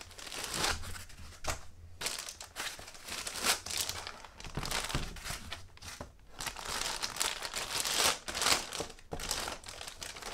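Laptop packaging being handled: white foam packing blocks pulled off the laptop, then its plastic protective sleeve crinkling as the laptop is picked up, in a run of irregular rustles and crinkles.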